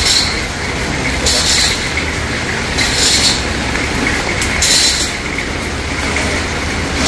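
Chainsaw running and cutting into the trunk of a large sonneratia tree, a steady engine rumble with a hiss that swells about every second and a half.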